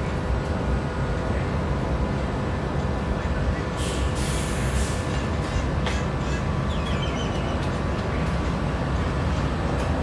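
Steady low mechanical rumble with a constant hum, with a brief hiss about four seconds in.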